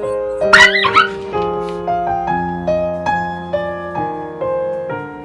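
Piano music playing a light melody, with a quick pair of high-pitched animal cries about half a second in, louder than the music.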